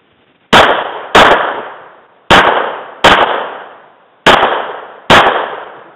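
Six handgun shots from a stock service pistol, fired in three quick pairs with short pauses between the pairs, each shot ringing off in echo.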